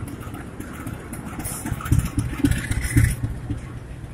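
Diesel passenger-train locomotive running as it pulls away directly below, its low engine drone loudest about two to three seconds in, with two heavy knocks and a hiss over the top at that point.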